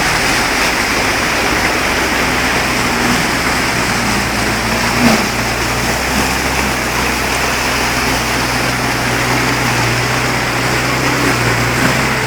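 Floodwater rushing steadily along a street, with a motor vehicle's engine running steadily close by.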